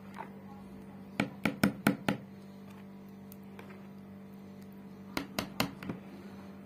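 Metal wire whisk clattering against the side of a bowl while whisking yogurt thinned with water: a quick run of about six knocks about a second in, and another of about five near the end, over a faint steady hum.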